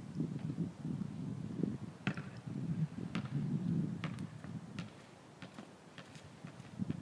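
Wind buffeting the microphone, a low uneven rumble that eases off for a moment near the end, with a few faint sharp taps scattered through it.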